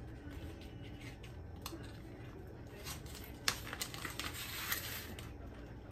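Handling noises: rustling and clicking as things are moved about close by, with a sharp click about three and a half seconds in, over a low steady hum.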